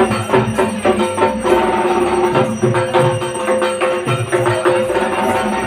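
Music with a fast, busy percussion beat under held instrument notes.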